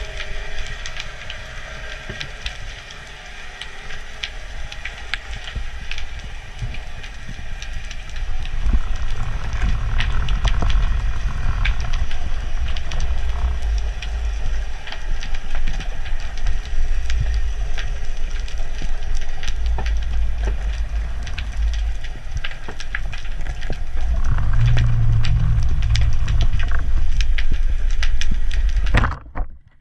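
Water rumbling and sloshing with many scattered small crackles and clicks. The low rumble grows louder about eight seconds in and cuts off abruptly near the end.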